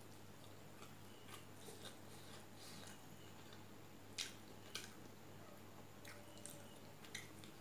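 Quiet chewing of a mouthful of rice and fish curry, with soft squishing as fingers mix rice on a steel plate and a few sharp clicks, the loudest about four seconds in.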